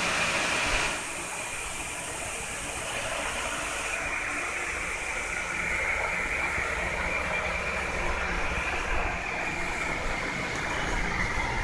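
Steady background noise, an even hiss with a low rumble, a little louder for the first second.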